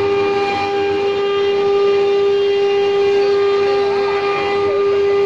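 Spindle motor of a stone-engraving CNC router running with a steady whine, with a light hiss underneath.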